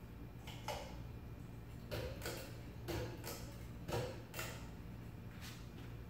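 Pull-chain switch of an Emerson Premium ceiling fan clicking as the chain is pulled repeatedly, mostly in close pairs about once a second, over a low steady hum; the fan is being switched on and run through its speeds.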